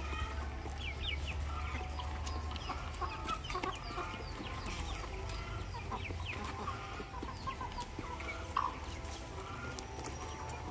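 A flock of fighting chickens clucking and peeping as they feed, with many short, high, falling chirps from the chicks over the clucks of the grown birds. A low rumble runs underneath, loudest in the first couple of seconds.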